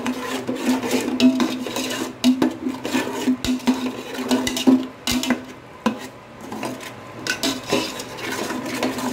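Metal spoon stirring and scraping a thick spice paste frying in an aluminium pot, with repeated scrapes and clicks of metal on the pot that ease briefly about two-thirds of the way through. A faint steady low hum runs underneath.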